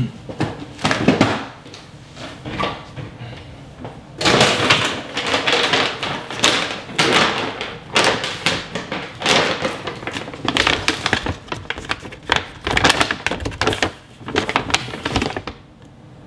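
Rustling of a large plastic protein-powder bag and light knocks of a scoop as protein powder is scooped into a shaker bottle: a run of short noisy bursts, busiest from about four seconds in.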